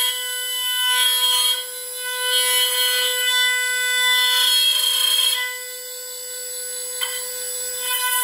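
High-speed router spindle of a Lee Hyun multi-purpose woodworking machine whining steadily while a thin straight end mill cuts into a wooden board. A rasping cutting noise swells and eases several times as the bit works through the wood, and is lighter for a couple of seconds after the middle.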